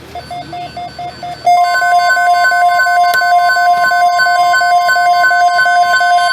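NOAA Weather Radio alert tones: a short run of rapid beeps, then about a second and a half in the long steady warning alarm tone starts, with a rapid pulsing beep layered over it, signalling that a weather alert follows.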